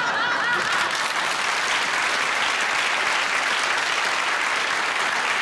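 Studio audience applauding steadily, with laughter over the first half-second.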